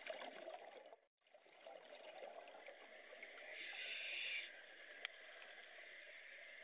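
Scuba diving underwater: a steady hiss and bubbling of regulator breathing, with a louder rush of exhaled bubbles from about three and a half to four and a half seconds in. The sound drops out briefly about a second in, and there is a single sharp click near five seconds.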